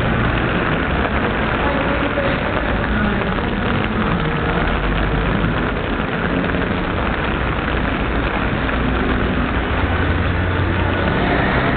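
Steady traffic noise of a city street in the rain: vehicle engines running and tyres hissing on the wet road.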